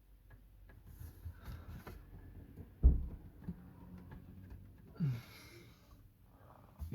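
Handling noise from working on car dashboard trim: scattered small clicks and rubbing, with one sharp knock about three seconds in. A breathy exhale comes about five seconds in.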